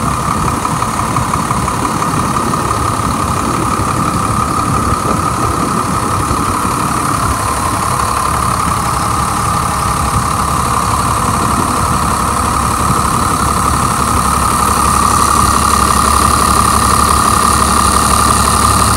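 8.3-liter Cummins turbodiesel in a fire truck idling steadily and smoothly, heard close up in the engine bay, with a steady whine over the engine noise. It gets a little louder in the last few seconds.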